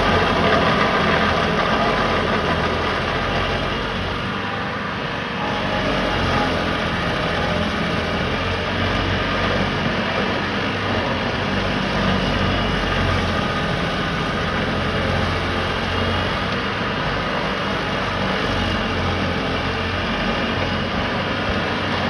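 Vermeer tracked stump grinder running at steady full speed, its cutter wheel chewing into a tree stump. The engine and the grinding are loud and continuous, easing slightly about four to five seconds in.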